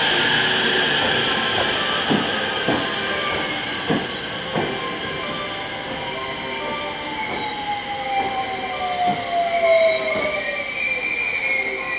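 An electric train pulls into the platform and slows to a stop. The wheels clack over rail joints, more slowly as it goes, the motor whine falls steadily in pitch, and high brake squeal comes in near the end.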